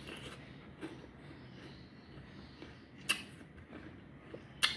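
Someone eating a fresh pear: three short, sharp, crisp bite or crunch sounds, about a second and a half to two seconds apart, with quiet between them.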